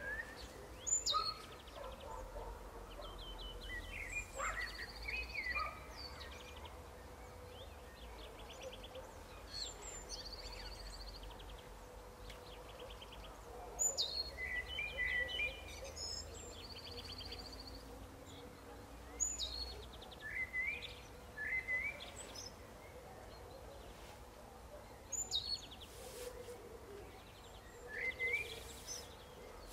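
Birds calling outdoors: sharp high chirps that drop quickly in pitch, coming every few seconds, with short buzzy trills in between, over a faint steady hum.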